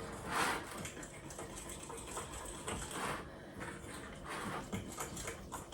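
A utensil stirring a thick flour-and-milk batter in a bowl: irregular soft scraping and rubbing, with two louder strokes about half a second in and about three seconds in.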